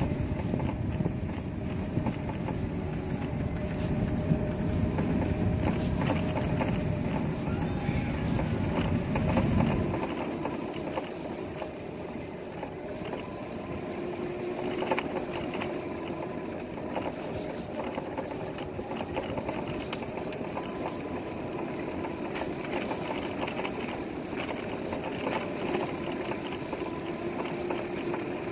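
Gogoro 2 electric scooter running, with steady whining tones and an abnormal noise from the scooter. A heavy low rumble drops away about ten seconds in, while the whine carries on.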